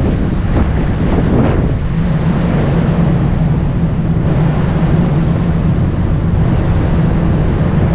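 Wind buffeting the microphone on a ferry's open deck over the steady low drone of the ship's engines. There are a few stronger gusts in the first couple of seconds.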